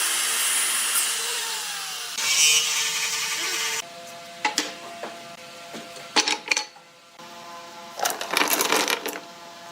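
A handheld power tool running on wood, its pitch sliding as the load changes, then stopping about four seconds in. After it, a few knocks and a short scraping burst as the workpiece is handled.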